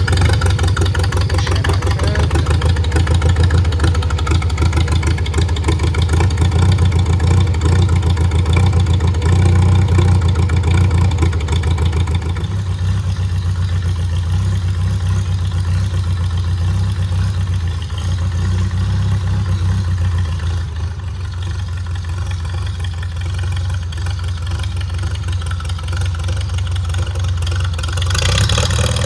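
Farmall A tractor's four-cylinder gasoline engine running just after a cold start on choke, with a steady low, even firing beat. About twelve seconds in, the higher part of the sound drops away and it runs softer.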